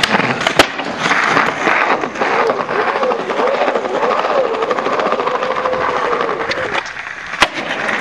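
Skateboard wheels rolling over rough pavement, a steady gritty rumble with fine rapid clicking, broken by sharp knocks of the board just at the start, half a second later, and once near the end.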